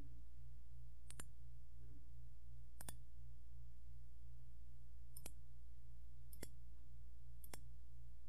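Five sharp computer mouse clicks spread unevenly over several seconds, over a steady low electrical hum.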